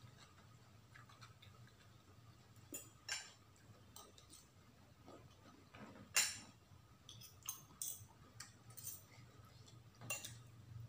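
Metal spoon and fork clinking against a ceramic plate while eating: a scattering of light clicks, the sharpest about six seconds in, over a faint low hum.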